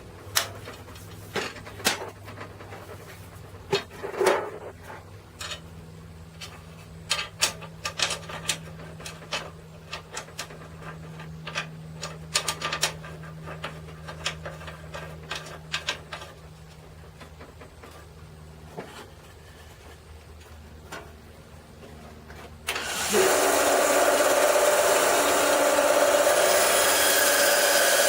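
Scattered clicks and knocks of handling a tabletop band saw over a faint low hum. Near the end, the band saw comes in suddenly and loud, running steadily as it cuts wood.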